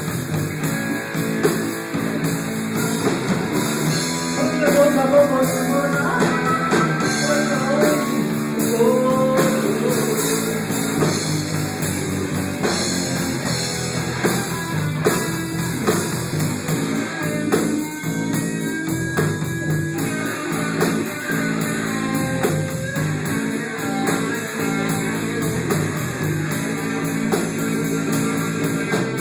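Band playing an instrumental passage: electric guitar melody over bass and a steady drum beat.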